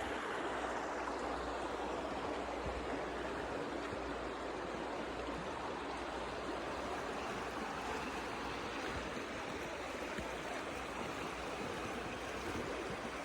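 Stream water rushing and gurgling, a steady unbroken flow.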